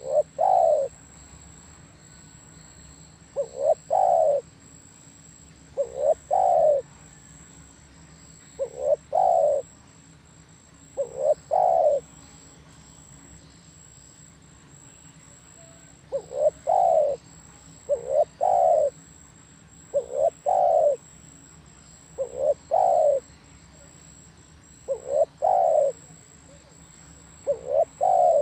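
Spotted dove (tekukur) cooing. A low phrase of short notes runs into a longer coo and repeats about every two to three seconds, with a pause of a few seconds midway.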